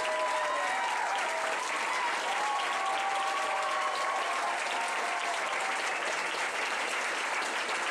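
Audience applauding steadily, dense clapping with voices cheering over it.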